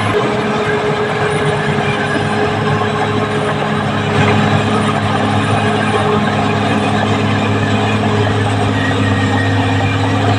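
Caterpillar D6R XL bulldozer's diesel engine running steadily.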